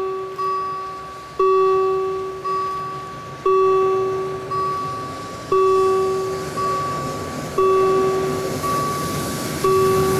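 A bell striking about once a second, the strikes alternating loud and soft, each one ringing on and dying away, over a steady low rumble.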